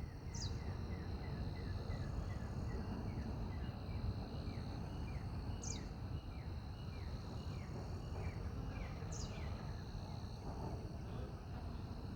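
Birds calling: a long series of short falling chirps, about three a second, slowing and stopping about nine and a half seconds in. Three sharp high falling whistles come a few seconds apart, near the start, in the middle and about nine seconds in. A steady high insect drone and a low rumble of background noise run underneath.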